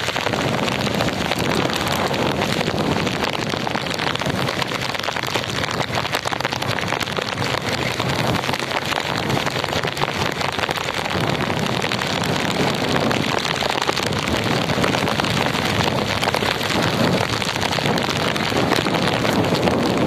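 Heavy tropical downpour: a steady, dense hiss of rain on the wet road, with wind buffeting the microphone and traffic noise underneath.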